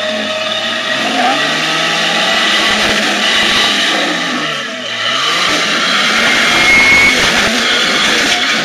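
Lifted Jeep Cherokee's engine revving hard under load as it crawls up a rock ledge. Its pitch dips briefly about four and a half seconds in, then climbs again and runs louder and rougher.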